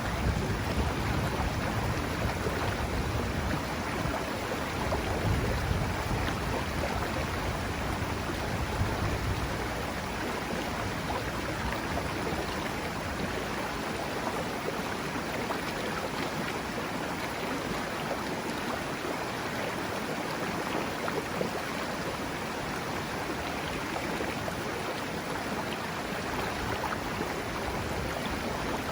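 Mountain river rushing steadily over its bed. A low rumble underneath in the first several seconds fades away about ten seconds in.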